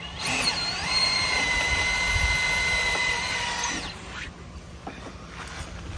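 Cordless drill driving a screw into a wooden board: the motor whine rises as it spins up, holds steady for about three and a half seconds, then stops abruptly. A few light clicks follow.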